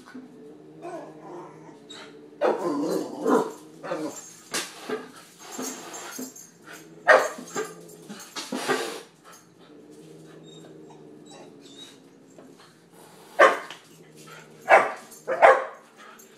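A puppy barking in short, separate barks at irregular intervals, with a quiet stretch in the middle and three barks in quick succession near the end.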